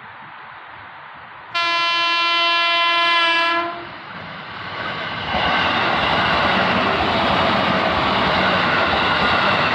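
An Indonesian KRL electric commuter train's horn gives one sudden blast of about two seconds, a single bright tone. The train then runs close past with a loud, steady rush and rattle of wheels on the track.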